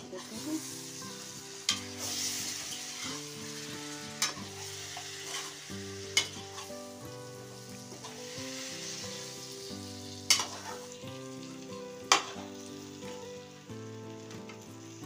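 Small stuffed eggplants, onions and spice masala sizzling in oil in a kadhai on a low flame while a perforated metal spatula stirs them. The spatula clinks sharply against the pan five times.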